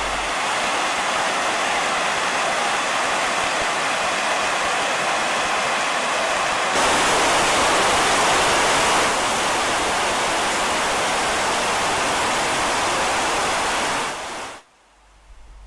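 Water rushing over an overflowing lake spillway, a steady loud roar of noise that gets louder and brighter for a couple of seconds near the middle. It fades away shortly before the end.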